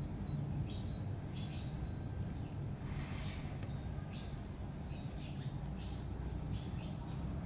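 Kittens mewing for food: many short, high-pitched mews in quick succession, over a steady low hum.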